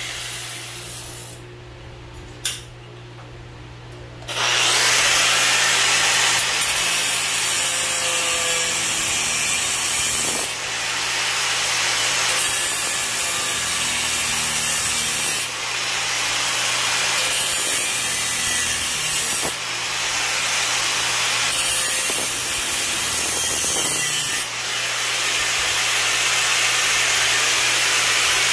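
Angle grinder with an abrasive cut-off disc cutting through a cast iron drain pipe. It winds down at the start, and after a few quieter seconds with a single click it runs loud and steady again, with a few brief dips as the cut goes on.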